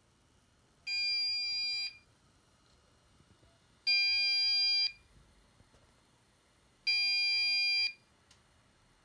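Electronic buzzer sounding three long, steady beeps, each about a second long and about three seconds apart.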